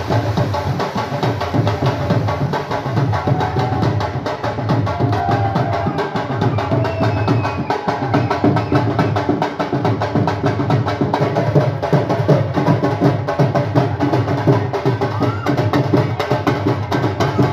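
Music with a fast, busy drum and percussion beat and a melody line over it.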